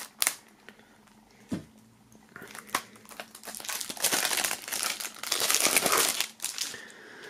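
Clear plastic shrink-wrap being slit and pulled off a CD jewel case, crinkling for several seconds, after a couple of sharp clicks at first.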